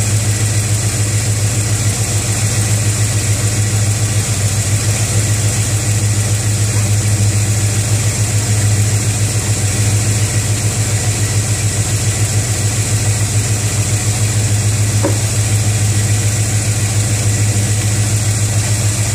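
A Chevrolet 305 V8 idling steadily, heard close up from under the open hood.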